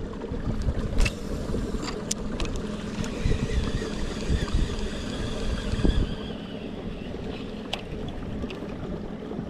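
Fishing kayak under way: wind buffeting the microphone and water rushing along the hull, with a few sharp knocks about one, two and six seconds in.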